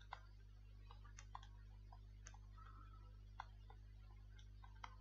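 Faint, irregular clicks and taps of a stylus on a pen tablet or touchscreen during handwriting, over a steady low electrical hum.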